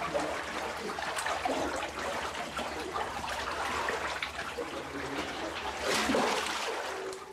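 Irregular trickling and splashing of water, louder for a moment about six seconds in.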